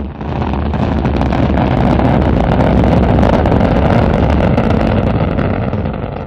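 Rocket engine firing: a loud, deep, steady rumble that dips briefly at the start, comes back up and holds, then begins to fade near the end.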